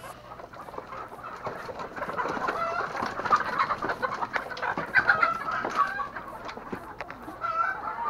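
A flock of Sonali chickens clucking and calling, many birds at once.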